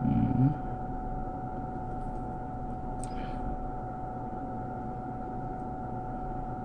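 Steady electrical hum with a constant high tone, with a brief vocal sound at the very start and a faint click about three seconds in.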